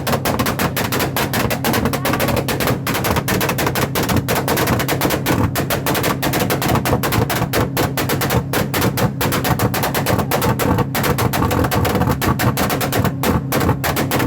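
Motorcycle engine held at high revs through a loud open exhaust, with a dense rapid crackle of pops over a steady engine note.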